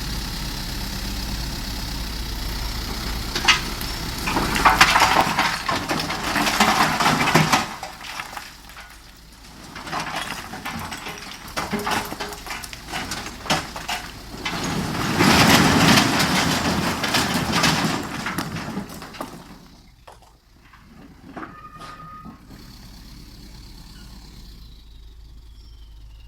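Heavy construction machinery and trucks running, with two long loud stretches of noise and repeated knocks.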